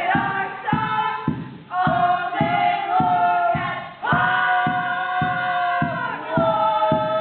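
A group of voices singing together in long held notes, over a steady beat of thumps about every 0.6 seconds.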